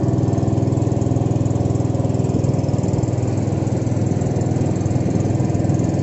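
Small long-tail boat engine running steadily at an even speed, a loud, fast, regular chugging with no change in pitch.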